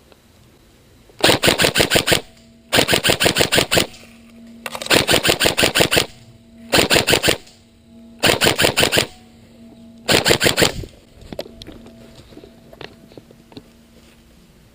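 Electric airsoft gun firing full-auto, six short bursts of rapid, evenly spaced shots with short pauses between them.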